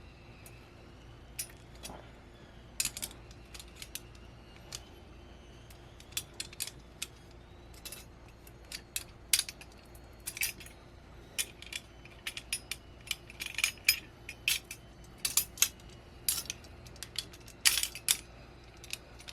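Metal parts of a VESA adapter mount clicking and clinking against a hand tool as it is forced and tightened, in irregular sharp clicks that come much more often from about six seconds in.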